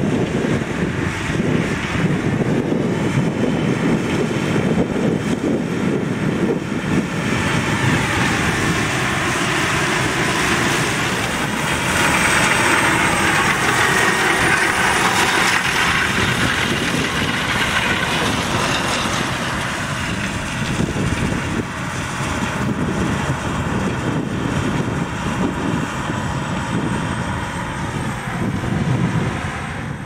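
Claas Lexion 770 Terra Trac combine harvesting corn with its 8-row corn picker header: engine and threshing machinery running as one loud, steady noise. The noise swells for a while in the middle.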